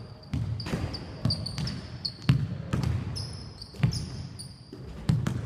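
Basketballs bouncing on a wooden court at irregular intervals, about seven bounces, with short high sneaker squeaks on the floor, echoing in a large sports hall.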